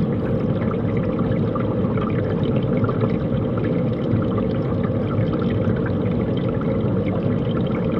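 Steady rush of moving water, a continuous even wash with no breaks.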